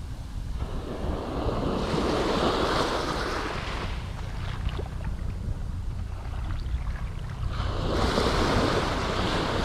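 Surf washing up the beach in two swells, one starting about a second in and another near the end, over a steady low rumble of wind on the microphone.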